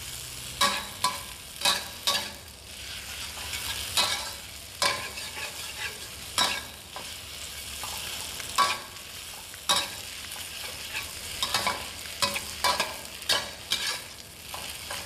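Metal wok spatula scraping and knocking against a steel wok in irregular strokes about once a second, as wide rice noodles are stir-fried in a little oil, with a steady sizzle underneath.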